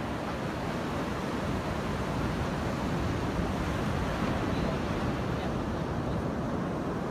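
Ocean surf breaking on a sandy beach: a steady rush of waves, mixed with wind noise on the microphone.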